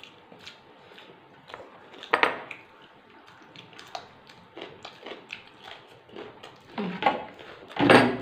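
Close-up eating sounds: small wet mouth smacks and chewing, and fingers working rice on plastic plates, as people eat by hand. A few louder short sounds stand out, about two seconds in and twice near the end.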